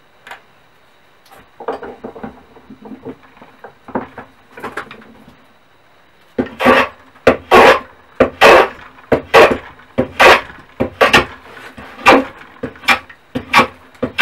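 Hand plane taking shavings off an ash blank: about a dozen quick, loud strokes, about one and a half a second, starting near the middle. Softer scraping and knocking of the wood being handled comes before them.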